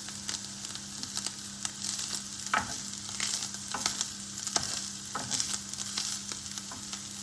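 Vegan bacon lardons sizzling and crackling as they fry in a pan, with a few sharp knocks from stirring, over a steady low hum.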